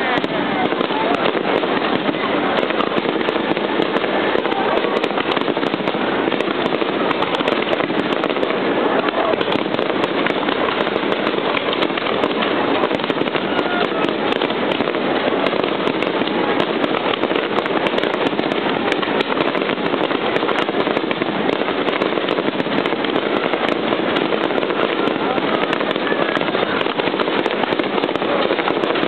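Fireworks display in its closing stretch: a dense, unbroken run of sharp crackling bursts, with people's voices mixed in.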